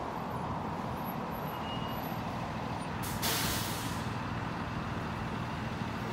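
Steady low rumble of road traffic, with a sharp hiss lasting about a second around three seconds in.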